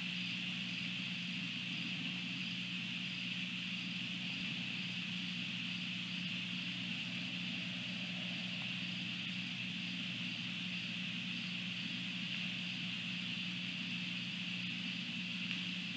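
Steady outdoor night ambience: a constant low hum under a high-pitched hiss, with a faint, evenly repeating pulsing in the high band. Nothing starts or stops.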